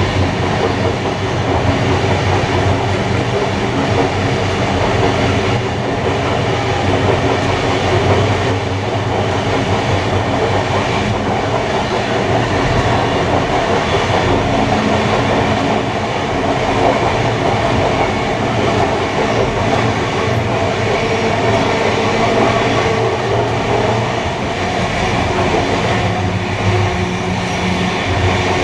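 Steam-hauled passenger train running steadily along the line: a continuous rumble of wheels on rail with a constant drone.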